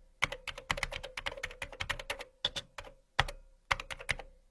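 Rapid, irregular clicking like keys being typed on a keyboard, several clicks a second, over a faint steady hum.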